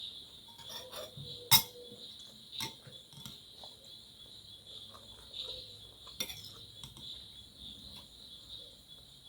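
A few light clinks and taps of cutlery against a plate, the sharpest about a second and a half in, over crickets chirring steadily in the background.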